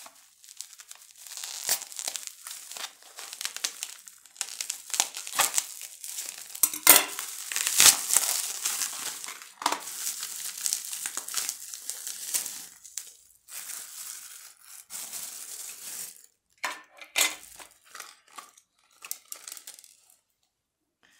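Plastic packaging, bubble wrap and a clear plastic bag, crinkled and pulled open by hand: a dense crackling rustle that thins to a few scattered rustles and clicks after about sixteen seconds.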